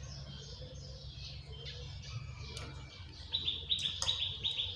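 A bird chirping: a rapid run of short, high chirps, about five a second, starting a little past halfway through, over a steady low hum. A single light click comes near the end.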